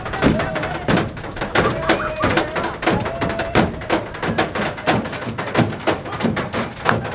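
A dense, irregular run of sharp knocks and thumps, with people's voices giving a few short held calls over it.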